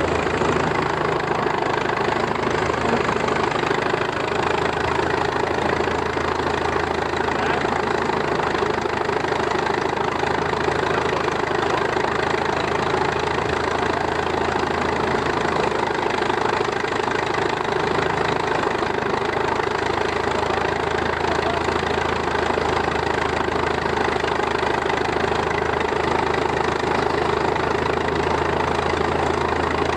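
A threshing rig running steadily: the engine of a cross-motor Case tractor drives a threshing machine as oats are threshed. It is a dense, unchanging mechanical din with no breaks.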